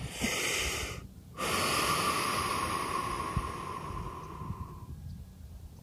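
A man breathing close to the microphone: a short breath in, a brief pause, then a long slow breath out that fades away after about three and a half seconds.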